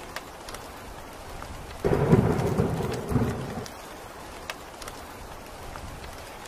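Steady rain falling, with scattered single drops ticking. About two seconds in, a thunderclap breaks in suddenly and rumbles for nearly two seconds before fading back into the rain.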